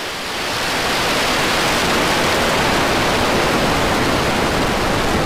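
SpaceX Starship SN10's three methane-fuelled Raptor engines firing just after liftoff: a loud, steady rush of rocket exhaust noise that swells about half a second in.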